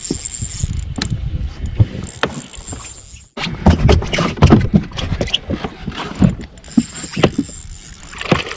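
Handling noise aboard a small fibreglass boat while a spinning reel is worked against a hooked fish: a run of knocks and thumps against the hull and deck, loudest in the middle. A faint steady high tone is heard near the start and again near the end.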